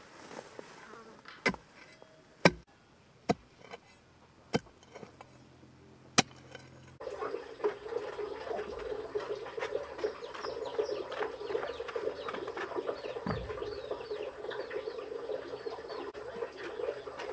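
A long-handled hoe chopping into dry dirt, about five sharp strikes a second or so apart, the one near two and a half seconds in the loudest. After about seven seconds it gives way to a steady outdoor buzz of insects full of quick little chirps.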